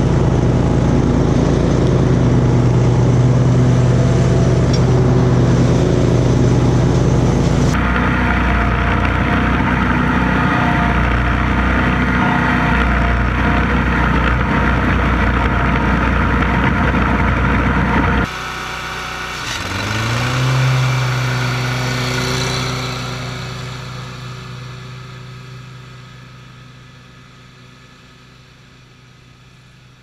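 Commercial riding lawn mowers running while mowing, in three cuts. First a steady engine hum, then an Exmark zero-turn's engine and blades close up, louder and noisier. Last, a mower engine whose pitch rises about two seconds after the final cut, then fades steadily as the mower moves off into the distance.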